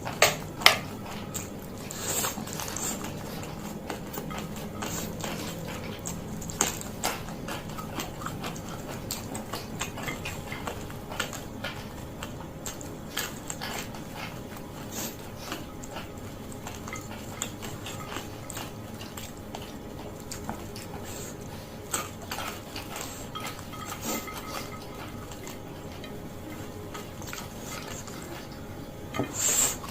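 Close-miked eating sounds: a person chewing and biting fried noodles, with many short clicks and a few louder knocks.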